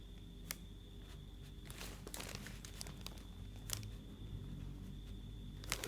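Pen drawing on paper with a ruler: faint scratching strokes around two seconds in and a few light clicks and taps, the last near the end.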